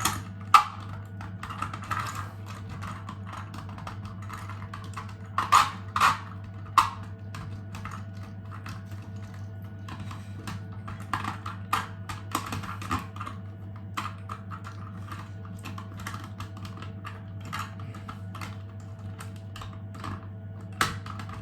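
Small 3D-printed plastic parts clicking and tapping against each other as they are handled and fitted together, irregular light clicks with a few sharper knocks around six seconds in. A steady low hum runs underneath.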